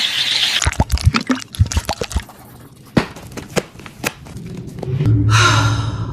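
Slime being squeezed and worked by hand, making many wet clicks and snapping pops. A louder, longer squelch comes about five seconds in.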